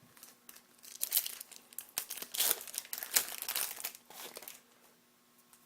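A hockey card pack's foil wrapper crinkling and tearing as it is ripped open, in a run of crackles that dies away about four and a half seconds in.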